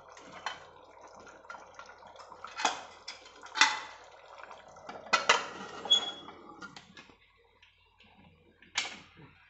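Steel lid of a pressure cooker being picked up and fitted onto the pot and locked: a series of sharp metal clanks and knocks. The loudest comes about three and a half seconds in, and a clank about six seconds in rings briefly.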